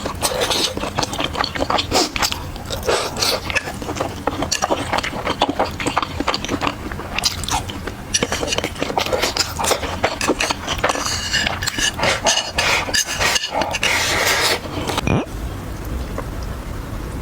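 Close-miked eating: chewing with frequent crunches and bites. About fifteen seconds in it cuts off suddenly, leaving a steady low hum.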